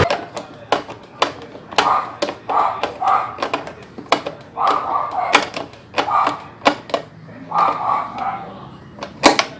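Irregular sharp clicks and knocks of hands handling and fastening a washing machine's plastic hoses and parts.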